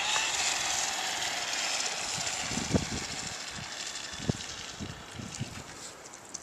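Traxxas Slash 4x4 RC truck's brushless electric motor whining with tyre hiss as it drives away across asphalt, the high whine fading steadily as it gets farther off. A few soft low thumps come partway through.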